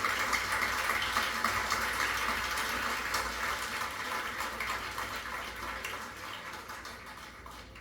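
Rainfall sound effect at the close of a song, a steady patter that fades out slowly.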